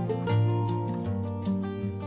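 Background music with a steady beat and plucked-string notes.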